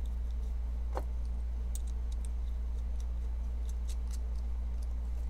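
Light, scattered metallic ticks and clicks as small screws and parts are handled and started into a titanium pocket knife during reassembly, with a slightly fuller click about a second in. A steady low hum sits underneath throughout.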